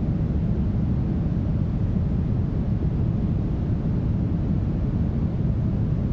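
Steady, smoothed brown noise: an even, deep rush, strongest in the bass and thinning out toward the top with little hiss. It holds at the same level throughout, with no changes.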